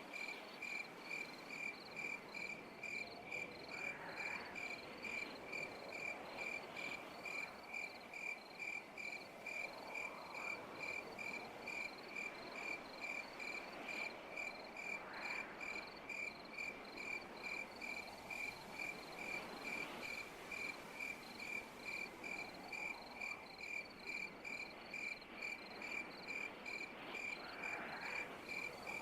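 An insect, most like a cricket, chirping steadily in a high, even pulse about three times a second. Beneath it a soft rushing noise swells and fades every few seconds.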